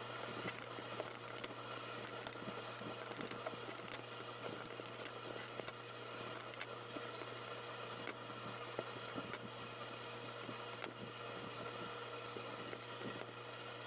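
Scattered soft clicks and taps of paper being folded and taped into a small box, over a steady low hum.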